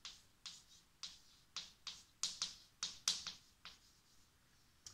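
Chalk writing on a blackboard: a quick, uneven run of about ten short taps and scrapes as the letters and numbers are written, with a pause of about a second near the end.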